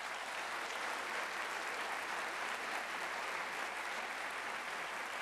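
Large lecture-hall audience applauding steadily at the end of a talk.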